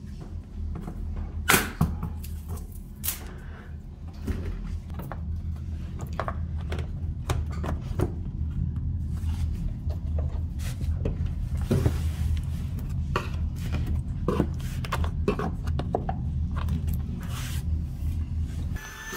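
iRobot H1 handheld vacuum running steadily with a low hum while it cleans along a baseboard, with scattered sharp clicks and rattles as debris is picked up. The motor cuts off abruptly near the end.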